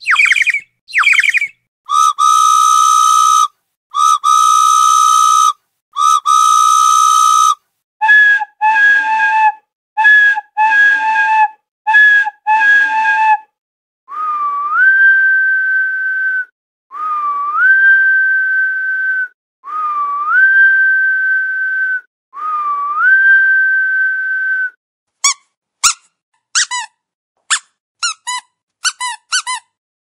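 A sequence of whistle-like sound effects with silence in between. Quick falling chirps start it, then three long steady tones, six shorter beeps, and four long whistles that each slide up and then hold. A rapid run of short falling chirps comes near the end.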